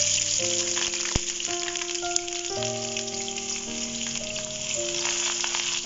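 Sliced onions dropped into hot oil in a wok, sizzling at once as they go in and frying with a steady sizzle. Background music with held notes plays under it.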